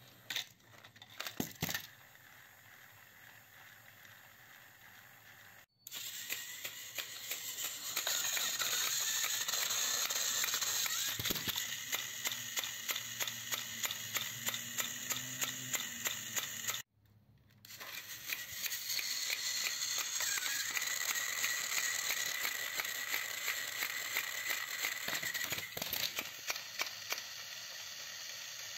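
Battery-powered plastic toy locomotive running off the track while lying on its side: its small motor and gears give a steady whirring rattle with a rapid, even clicking. It starts about six seconds in, cuts off abruptly around seventeen seconds, and starts again shortly after.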